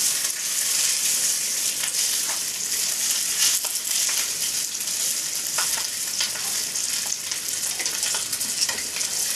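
Leftover cooked rice frying in hot olive oil in a pan: a steady high sizzle with scattered crackles.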